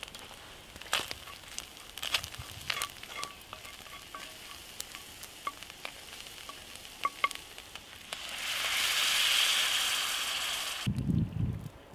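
Scallions and garlic frying in oil in an 8-inch Lodge cast iron skillet, crackling and sizzling while a wooden spatula stirs and scrapes them. About eight seconds in, water poured into the hot pan sets off a loud hiss that stops abruptly, followed by brief low splashing of water into liquid near the end.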